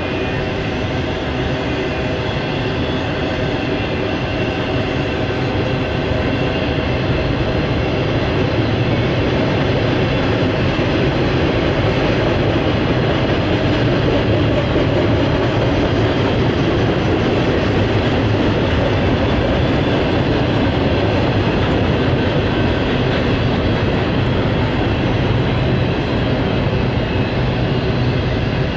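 Union Pacific double-stack intermodal container train passing, its well cars' wheels running on the rails in a steady, loud noise.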